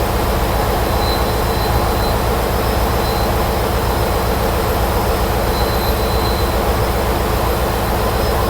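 Steady machinery noise of a ship's boiler room with the boiler's burner firing: a constant roar over a strong low hum, unchanging throughout. A faint high beep sounds now and then.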